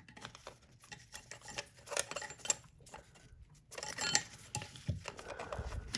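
Light metallic clicks, clinks and scrapes of small Singer 201K sewing machine parts being handled and fitted into place, in an irregular scatter.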